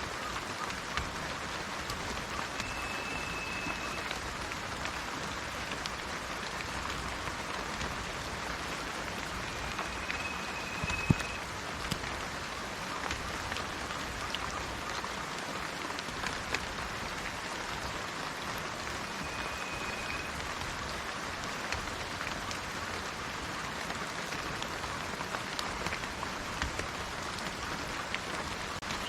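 Steady rain falling, with individual drops striking surfaces as scattered clicks and one sharper drop hit about eleven seconds in.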